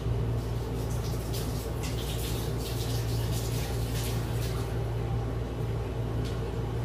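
Water running and splashing from a tap, in uneven rushes that are strongest in the middle seconds, over a steady low hum.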